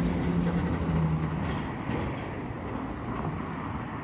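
Road traffic: cars driving through the intersection, with a low steady engine hum in the first half and tyre noise.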